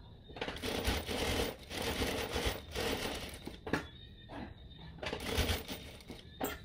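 Fabric rustling and crinkling as cloth is handled, in several bursts with short pauses between them and a sharp click near the end.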